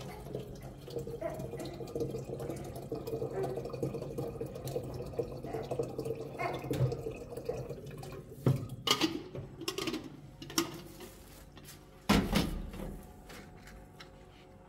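Water running and trickling, then several sharp knocks and clatters, the loudest near the end.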